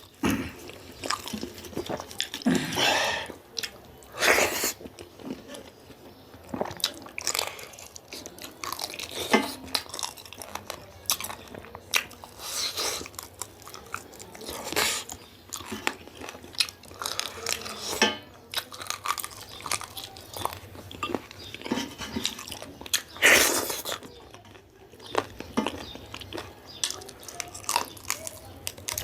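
Close-up chewing and biting of bony local rooster curry meat, with crunchy bites coming in a steady, irregular run. A few louder ones come about 3, 4.5 and 23 seconds in.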